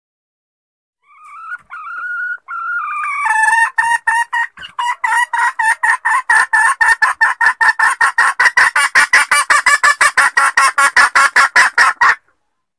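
A junglefowl hen calling: a few drawn-out notes, then a fast, even run of clucks at about five a second that stops abruptly. This is the hen call used as a lure to draw wild junglefowl cocks out of cover.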